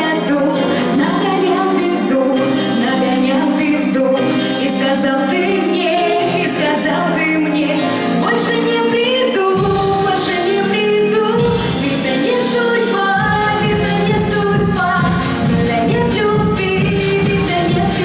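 A woman singing a Russian pop song live into a microphone over a pop backing track. A bass-heavy drum beat comes in about ten seconds in and runs steadily from about thirteen seconds on.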